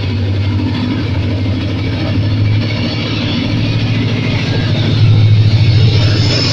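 Diesel-electric locomotive (ZCUP-30 class) engine running with a deep, pulsing drone that grows louder as the train starts moving.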